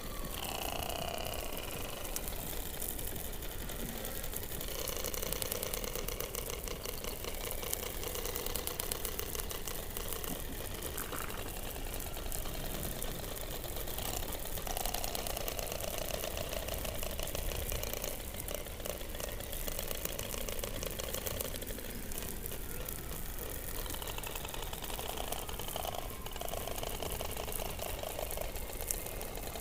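Underwater hydrophone recording from beneath the Antarctic ice: a continuous rapid pulsing rattle with overlapping drawn-out tonal calls, including a short falling tone about half a second in and several calls held for a few seconds each.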